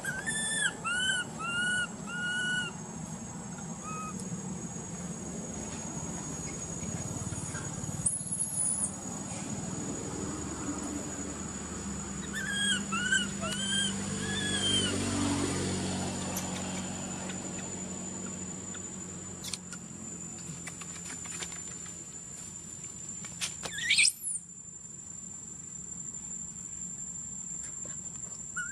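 Short whistle-like animal calls, four in quick succession at the start and another run about halfway through, over a steady thin high-pitched whine and a low rumble; a single quick rising whistle comes near the end.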